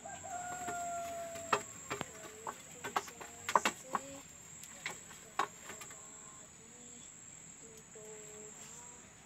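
Stainless steel plates and bowls clinking and knocking against each other as they are scrubbed, a string of sharp metallic clinks in the middle of the stretch, over a steady high-pitched drone of crickets.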